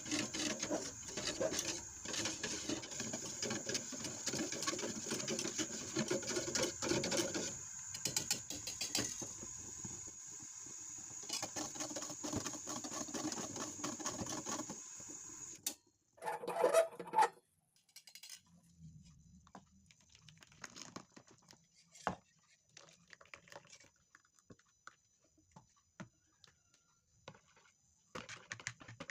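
Kitchen work sounds from preparing food by hand: dense rapid clicking and scraping over a steady high hiss, then, after a sudden cut about halfway through, a brief louder burst followed by sparse light taps.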